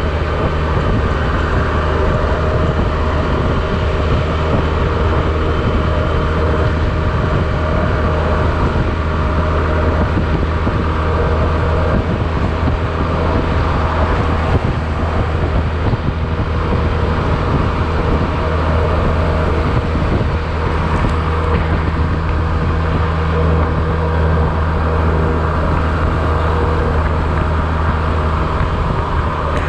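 Honda Silver Wing maxi-scooter engine running at a steady, unchanging speed while riding.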